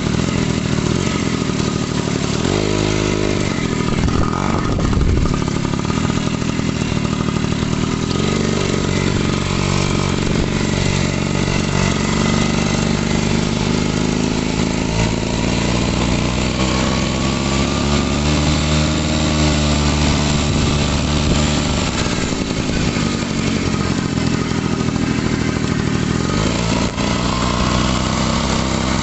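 Daelim motorcycle engine running, its speed rising and falling several times.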